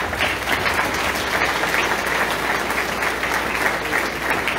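A congregation applauding: a dense, steady clapping of many hands.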